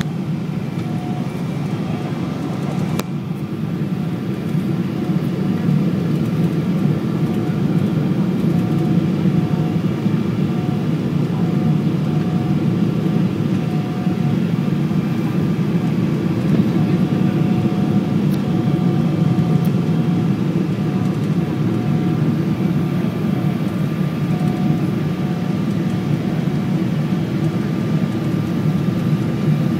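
Steady airliner cabin noise, a low rumble of engines and air, with a faint tone that pulses on and off and a single click about three seconds in.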